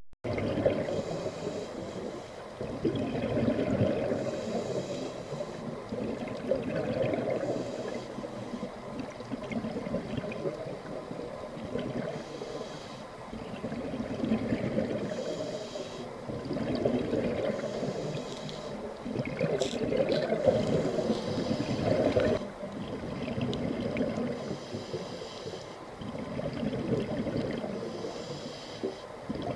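Scuba diver breathing through a regulator underwater: a hiss on each inhale, then a bubbling rush of exhaled air, repeating every few seconds.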